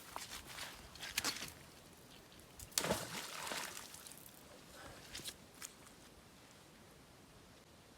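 Water splashing and sloshing, loudest about three seconds in, with a few short clicks, as waterweed is dragged out of the water.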